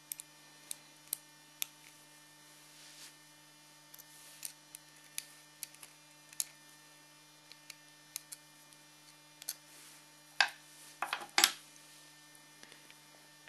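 Small metallic clicks and ticks of a hex key working the screws of a metal airgun trigger housing, with a few louder clacks about ten to eleven seconds in as the trigger unit is freed from the receiver. A steady low electrical hum lies underneath.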